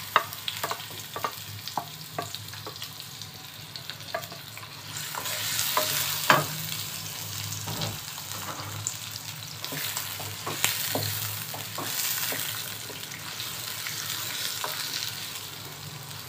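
Sliced onions frying in hot oil in a metal pot, sizzling, while a wooden spoon stirs them with scattered scrapes and knocks against the pot. The sizzle grows louder about five seconds in.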